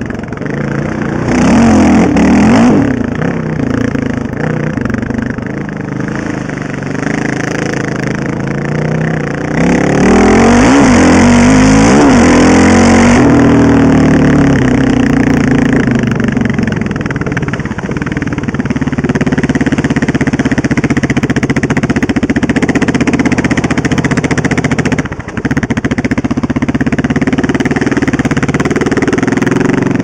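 Honda TRX700XX sport quad's single-cylinder four-stroke engine running on the trail under changing throttle, its pitch rising and falling. It revs hard briefly about two seconds in and again for a longer stretch from about ten to thirteen seconds in, and drops off for a moment about twenty-five seconds in.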